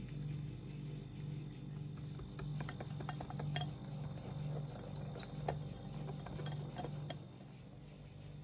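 Wire whisk beating pancake batter in a glass bowl, with quick light clinks of the wires against the glass. The whisking stops about seven seconds in.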